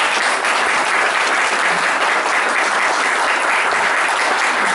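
Audience applauding: steady, dense clapping from many hands, keeping an even level throughout.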